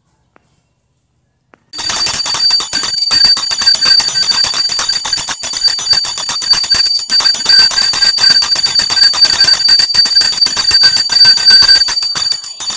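Hand-held puja bell rung rapidly and continuously: fast strikes of the clapper under a steady, high ringing tone. It starts about two seconds in and goes on until the end.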